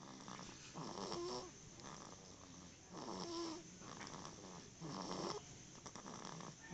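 Snoring in slow, even breaths: three snores about two seconds apart, each carrying a wavering, whistling tone.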